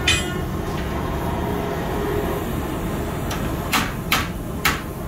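Sharp knocks of a hand tool on metal, one at the start and three about half a second apart near the end, over a steady low rumble.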